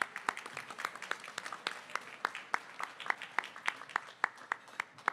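Audience applauding, with one person's louder claps, about three a second, close to the microphone standing out; the clapping stops at the very end.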